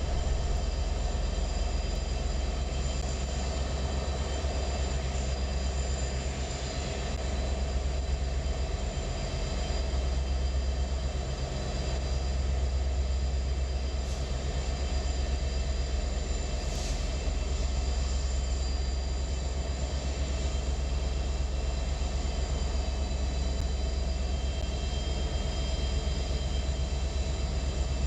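Union Pacific diesel locomotives running as they roll past at slow speed, a steady low engine drone with the rumble of the train.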